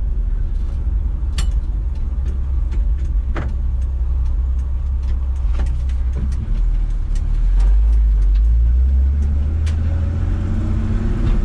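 Chevy C10 pickup's straight-six engine running as the truck drives, heard from inside the cab as a steady low rumble that swells for a few seconds past the middle, with scattered light clicks and ticks over it.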